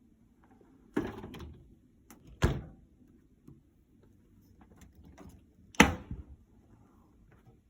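A dishwasher being handled: a clunk about a second in with a short rattle after it, a sharper clunk a moment later, and the loudest clunk near six seconds in, like a door or rack knocking shut.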